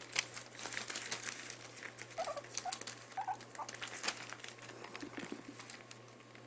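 Maltipoo puppies scrambling over newspaper, the paper rustling and crinkling under their paws with quick pattering clicks. About two seconds in, a puppy gives four short high squeaks.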